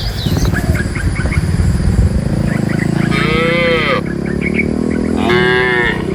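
Cattle mooing: a low drawn-out lowing, with two loud, higher calls that rise and fall in pitch, one about three seconds in and another near the end.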